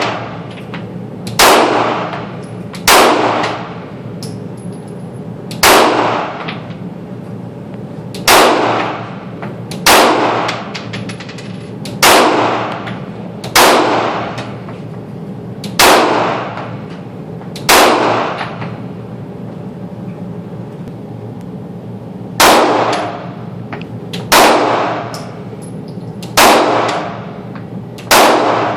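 Glock 26 9mm pistol fired in single shots at a slow, steady pace, thirteen shots in all, each followed by a long echoing ring. There is a longer pause before the last four shots. A steady low hum runs underneath.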